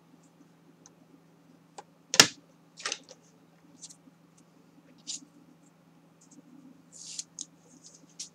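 Card and paper being handled and pressed on a cutting mat as double-sided-tape edge flaps are stuck down: scattered short rustles and light taps, with one sharp knock a little over two seconds in. A faint steady hum runs underneath.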